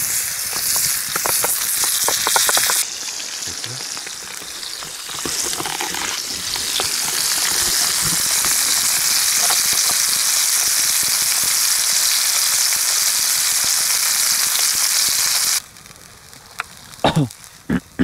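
Ground beef burger patty sizzling in oil in a small frying pan over a campfire. The sizzle is loud and steady, drops away suddenly about three seconds in, builds back up, then cuts off abruptly near the end.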